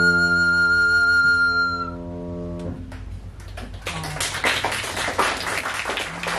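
Wooden recorder holding the final high note of the piece over a sustained lower accompaniment chord; the note stops about two seconds in and the chord just after. About a second later, audience applause begins.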